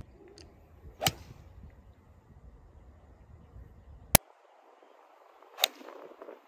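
Two golf shots, each a sharp crack of an iron's clubface striking the ball, about four and a half seconds apart, the second from a 7-iron. A very short, sharp tick falls just before the second shot.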